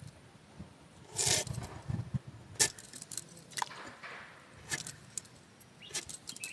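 Curved knife cutting chunks off a peeled potato held in the hand: a series of sharp, irregular clicks and light clinks, several times over.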